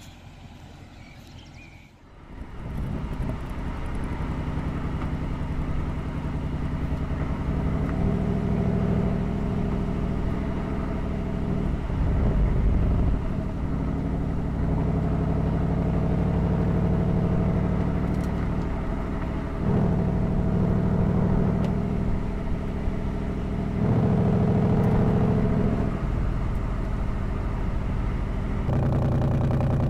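Ford Mustang GT's 5.0-litre V8 heard from outside the car. It comes in suddenly about two seconds in and then runs at a steady pitch, growing louder in several stretches of a few seconds each.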